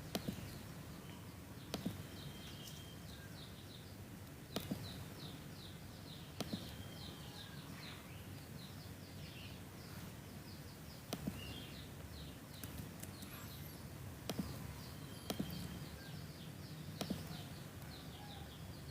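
Faint background birdsong: series of quick, high, downward-sliding chirps repeating throughout, over low room noise. A few sharp taps stand out, about a second or three apart at irregular times.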